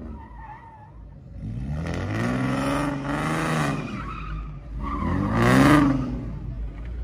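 A car doing donuts: its engine revs up and down in two long swells, the second louder, with the tyres screeching as they spin on the pavement.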